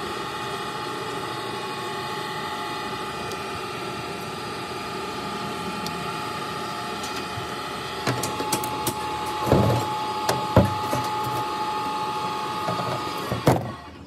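Steel screwdriver scraping and prying an old seal out of a hydraulic jack's steel cylinder housing, with scattered metal clicks and a few sharp knocks in the second half, over a steady machine hum that stops just before the end.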